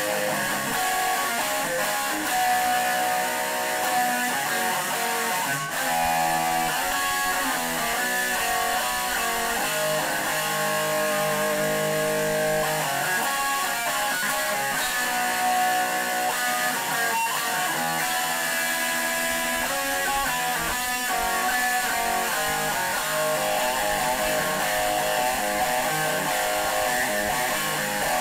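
Electric guitar played continuously, strummed chords and riffs at a steady level without pause.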